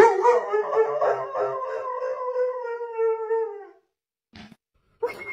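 A Doberman howls once, a long, steady wolf-like howl of about three and a half seconds that starts abruptly as she wakes from sleep and sags slightly in pitch at the end. Two brief sounds follow near the end.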